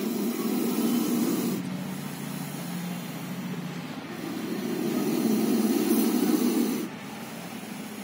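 Cobra hissing defensively: two long, low, breathy hisses, the first over about the first second and a half, the second from about four seconds in to nearly seven, with a quieter pause between.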